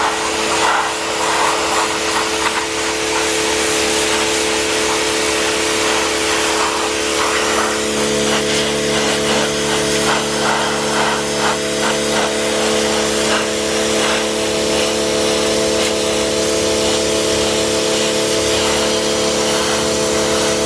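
Greenworks Pro 60V battery-powered pressure washer running: a steady electric motor and pump whine under the hiss of the water jet spraying onto rocks. About eight seconds in, a lower tone joins the whine.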